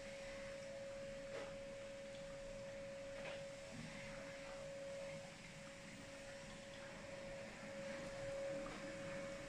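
Thin stream of hot water from a gooseneck kettle pouring onto coffee grounds in a pour-over dripper, a faint steady trickle. A steady humming tone runs underneath and is louder than the pour.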